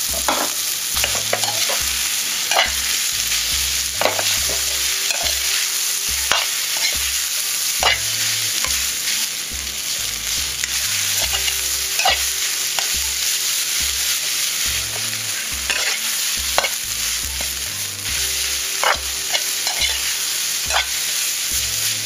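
Rice being stir-fried with minced pork, chilli and egg in a metal pan: a steady sizzle, with the metal ladle scraping and clacking against the pan at irregular moments.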